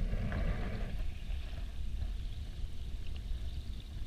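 Muffled low rumble of water moving around a camera underwater, with handling noise as the diver swims and holds the camera.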